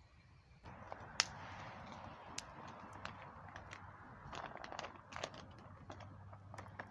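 Wood campfire crackling: a steady hiss with irregular sharp pops, the loudest about a second in.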